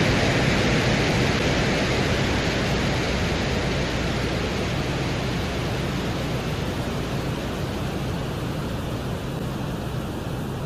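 Steady wind-like rushing noise with a low drone under it, slowly fading. It is presented as the real atmospheric sound of a Venera lander touching down on Venus.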